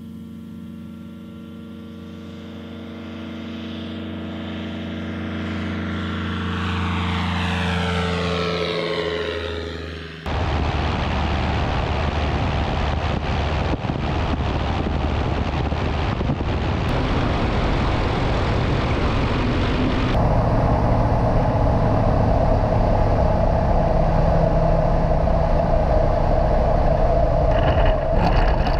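Two-stroke engine and propeller of an Avid light aircraft: first a steady hum that grows louder and drops in pitch as the plane passes by, then, after a sudden change about ten seconds in, the engine heard from on board under heavy wind rush, its tone changing again about twenty seconds in.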